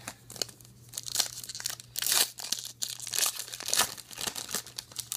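Trading card pack wrapper being torn open and crinkled, with irregular rustles and a louder tear about two seconds in.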